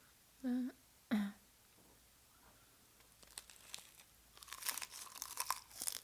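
Two short hummed "mm" sounds. Then, from about three seconds in, close-up crackling and crunching of eating that grows denser toward the end.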